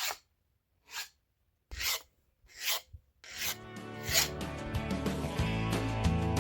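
Four short rasping hisses about a second apart from cleanup work on the engine block. About halfway through, background music with guitar comes in and grows louder.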